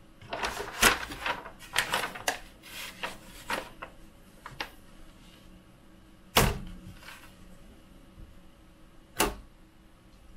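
Hands working at a 3D printer's bed with a freshly applied magnetic sheet: a few seconds of rustling and clicking, then two sharp knocks about three seconds apart.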